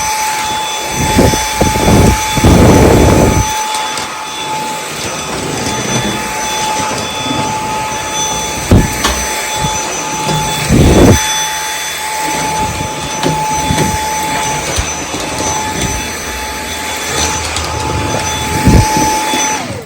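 Dyson V8 cordless stick vacuum running steadily with a thin, high motor whine while a floor tool is pushed over a hard floor, with a few low thuds along the way. The motor cuts off at the very end.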